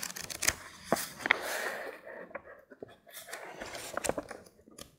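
Pages of an old book with yellowed paper being leafed through by hand: dry paper rustling and flicking in a series of short crinkles, quieter for a moment around the middle.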